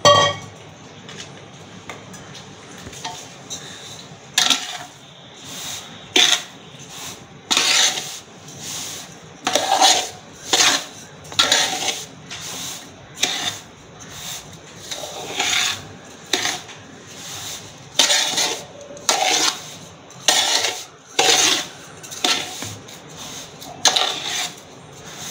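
Steel spoon stirring sugar into semolina in a large aluminium pot. It scrapes and clinks against the pot in short strokes a little over one a second, starting about four seconds in, after a single sharp clink at the start.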